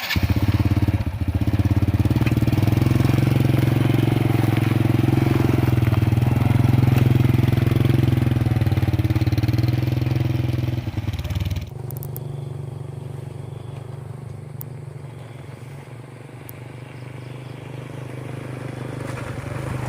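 A motor vehicle's engine running steadily, heard from on board while travelling. It starts suddenly, and a little over halfway through it drops much quieter, then slowly grows louder again.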